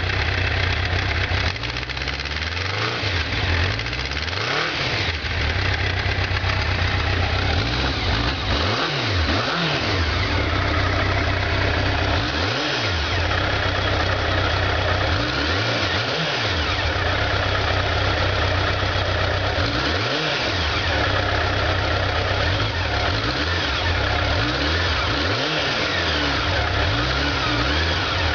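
Honda Nighthawk 750's air-cooled inline four-cylinder engine idling steadily through its stock muffler as it warms up after a cold start.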